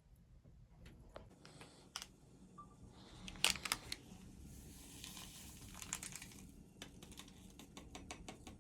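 Rustling and crinkling with scattered sharp clicks, loudest about three and a half seconds in and again a little later.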